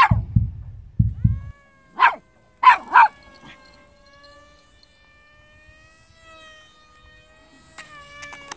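A few low drum beats, then three short dog-like yips and one long, steady howl.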